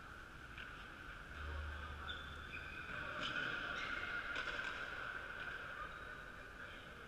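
Ambience of a big echoing sports hall: short, faint squeaks of sneakers on the wooden court and a couple of light knocks, over a steady high hum.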